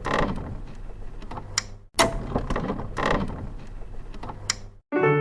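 Mechanical clunks and clicks, the same sequence twice: each time a sharp knock, then a rattling burst and a single click. Piano music starts near the end.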